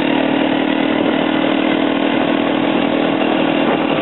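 Quad bike (ATV) engine running steadily while riding, a constant drone with a rushing noise over it.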